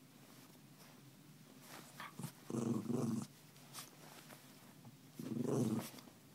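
Small terrier mix growling in play twice, each a short low growl, while mouthing its owner's hand, with light rustling of the bedding in between.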